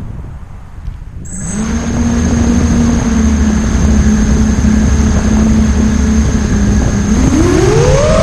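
Brushless motors of a QAV 250 mini quadcopter starting abruptly about a second in and spinning at a steady idle on the ground with a high whine, then rising in pitch near the end as the throttle comes up for takeoff.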